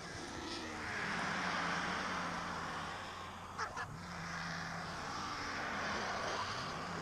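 Griffon and black vultures squabbling at a carcass, giving harsh calls that swell and fade. Two sharp knocks come a little past halfway.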